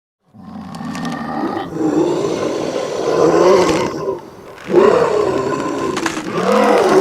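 A loud, animal-like roar in two long stretches with a wavering pitch, broken by a short dip about four seconds in.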